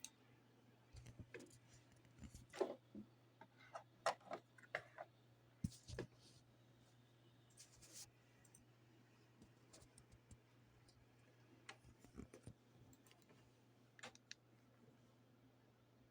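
Irregular light clicks and taps of keys and a touchscreen being pressed by fingers, in clusters with short pauses, busiest in the first half, over a faint steady electrical hum.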